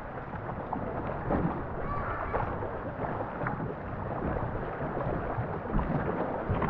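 Steady rushing of water and wind around a racing canoe under paddle, with a low rumble of wind on the microphone and a few faint paddle knocks.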